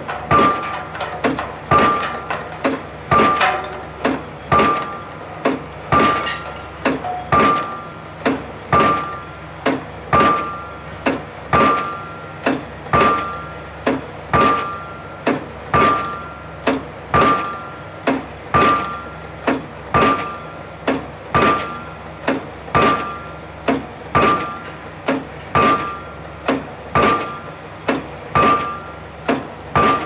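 Junttan PM25 piling rig's hydraulic impact hammer driving a precast concrete pile: a steady rhythm of heavy blows, about one a second, each with a short metallic ring.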